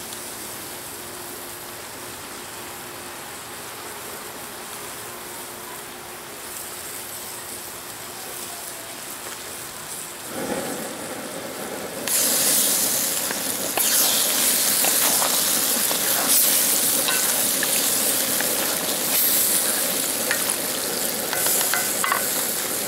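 Pepper steak in a soy-and-cornstarch gravy sizzling in a wok, steady and fairly soft at first. About ten seconds in it grows, and from about twelve seconds it turns much louder and brighter, with the wooden spatula stirring and scraping through the food.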